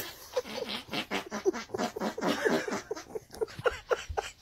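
Small dog yapping: a fast run of short, sharp barks, about four a second.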